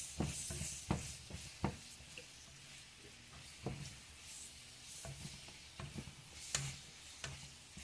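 Spatula stirring diced onions and bell peppers in a pot, with irregular scrapes and clicks against the pot and a faint sizzle of the vegetables cooking in olive oil.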